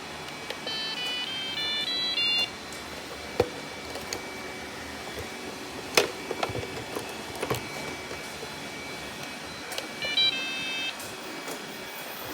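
Robot vacuum cleaner running with a steady hum, playing a short electronic tune of stepped beeps near the start and again about ten seconds in, with a few sharp knocks in between.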